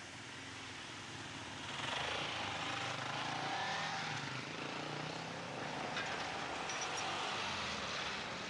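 Road vehicles driving past close by as traffic resumes over a level crossing. The engine of a small trail motorcycle goes by in the middle, and a van follows near the end.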